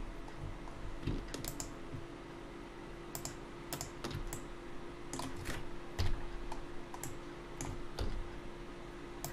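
Computer keyboard keystrokes and mouse clicks, sharp and irregular, a few to the second, over a steady faint hum.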